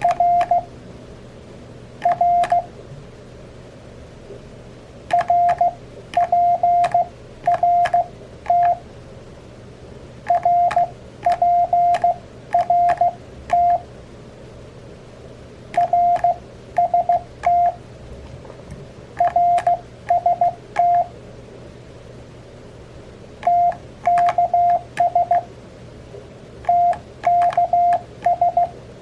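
Morse code (CW) sidetone at about 700 Hz from an Elecraft KX3 transceiver, keyed with its KXPD3 paddle. Short groups of dots and dashes spell out CW abbreviations, with pauses of one to three seconds between groups and a light click on each keyed element.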